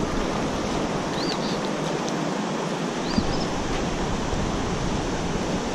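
Creek water rushing over a shallow riffle in a steady hiss, with a small bird chirping faintly a few times high above it. A single light tap sounds about three seconds in.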